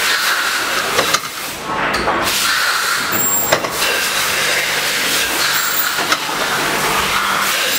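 Steady hiss of assembly-line machinery on a factory floor, with a few short sharp clicks as metal pump caps are handled.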